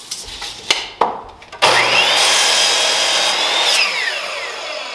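A couple of wooden knocks as a board is set on the saw, then a Ryobi sliding miter saw is switched on about a second and a half in: its motor whines up to a high steady pitch as the blade cuts through the board, then is released and winds down with a falling whine near the end.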